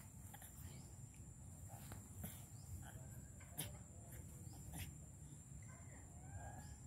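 Faint insect drone, one steady high-pitched tone, with a few soft scattered clicks and a brief faint chirp near the end.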